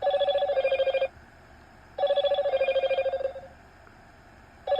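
Electronic ringer sounding in three warbling rings, each about a second long and spaced about two seconds apart, a fast trilling two-tone ring like a telephone's.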